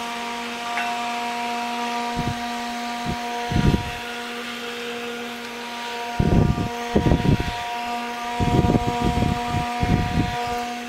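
ebm 24-volt cooling fan from an HP 3561A analyzer running off a bench supply at about 20 volts: a steady hum with the breeze off the blades. With its bearings freshly oiled, the blades are heard more than the bearing. Dull knocks and rubs come from hands gripping and turning the fan's frame, most of them in the second half.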